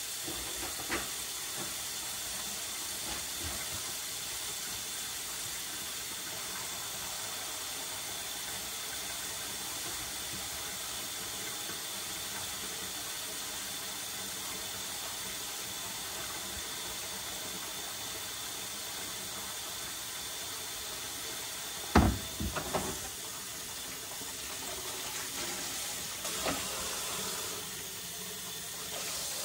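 A steady hiss, with a sharp knock about three quarters of the way through followed by a few lighter clatters.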